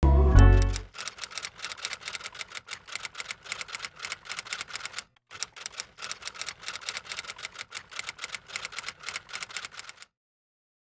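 A short, deep boom, the loudest sound, then rapid typewriter keys clacking keystroke by keystroke, with a brief pause about five seconds in, stopping about a second before the end.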